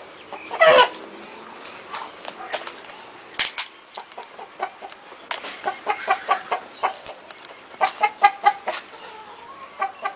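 Chickens clucking in a run of short, separate clucks, thickest in the second half, after one short loud call about a second in.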